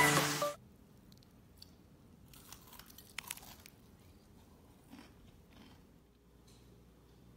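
Background music stops about half a second in; then faint crunching of crispy battered fried vegetable and baby octopus fritters, a scattering of sharp crackles over a few seconds.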